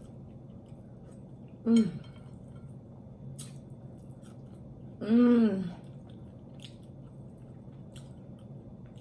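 A woman chewing roasted chicken, with small mouth clicks and smacks, and two short hummed "mm" sounds, the first about two seconds in and a longer one about five seconds in, rising then falling in pitch.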